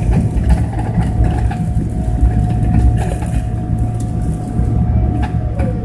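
Cabin noise inside a Boeing 777-300ER taxiing: a steady low rumble with a constant whine over it, and a tone that glides down in pitch near the end.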